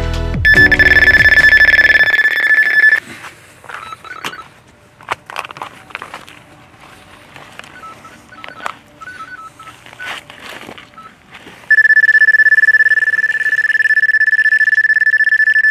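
Electronic carp bite alarm sounding a continuous tone for about two and a half seconds, then a few faint single beeps, then the continuous tone again from near 12 s onward. This is the sign of a fish running with the line.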